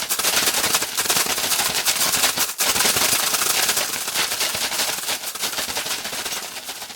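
Dense, rapid crackling made of countless tiny clicks, from a homemade Foley sound effect. It dips briefly about two and a half seconds in and fades away near the end.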